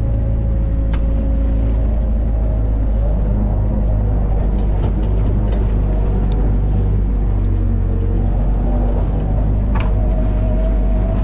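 Crab potting boat's engine running steadily, a deep even drone, with a couple of short knocks as pots and crabs are handled, one about a second in and one near the end.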